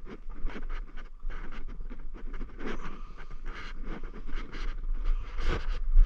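Footsteps crunching over dry, tilled soil and crop stubble in an irregular walking rhythm, with a low wind rumble on the microphone.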